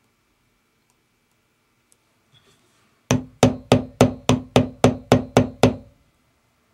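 A mallet striking the top of a metal leather stamping tool held on a piece of leather, pressing a design into it: a quick, even run of ten sharp knocks, about four a second, each with a brief ring. A few faint clicks come before, as the stamp is set in place.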